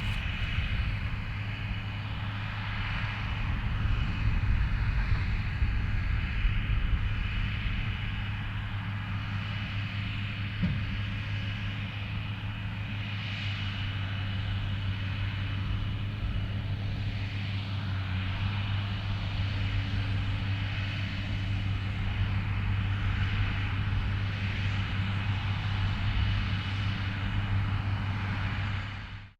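New Holland TM155 tractor engine running steadily under load, pulling a Claas Variant 385 round baler at work, with the baler's machinery running along with it. It cuts off suddenly at the end.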